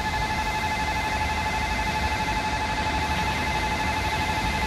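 Railway level crossing warning bell ringing: a steady, rapidly repeating electronic ding that signals an approaching train.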